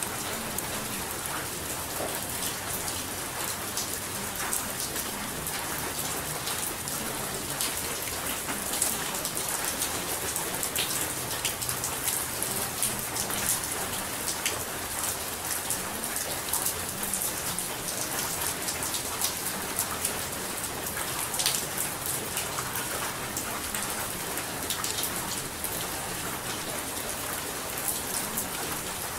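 Steady rain falling, a dense even patter of raindrops with many small sharp drop ticks.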